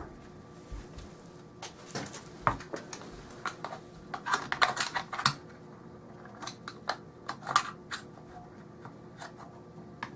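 Scattered light clicks, taps and knocks from hands handling an SKS rifle and gun-cleaning kit parts on a wooden table, with a quick run of clicks about four to five seconds in and a few more around seven seconds.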